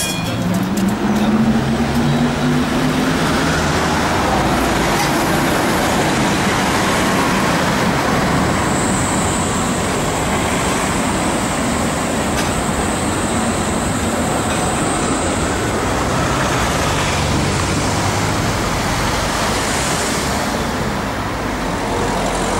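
Tatra T2 tram running along a city street amid road traffic, with a pitched motor whine rising in the first few seconds as it pulls away. A thin high whistle sounds for several seconds in the middle.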